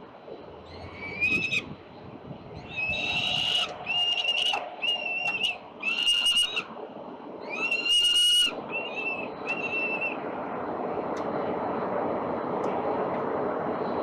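Young peregrine falcons calling: a series of about eight harsh, drawn-out wailing calls, each under a second long, the longest and loudest about eight seconds in. From about nine seconds a steady rushing noise of wind or city traffic rises beneath them.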